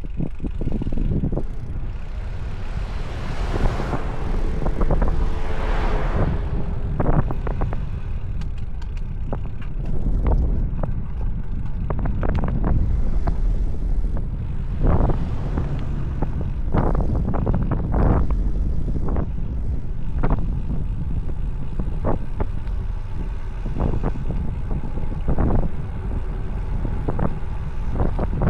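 Wind buffeting the microphone of a bicycle descending at high speed: a steady, loud low rush with frequent sharp knocks and rattles. A brighter hiss swells and fades a few seconds in.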